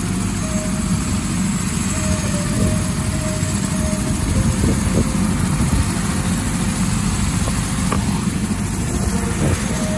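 Light helicopter running steadily on the ground, its turbine and rotor making a continuous drone.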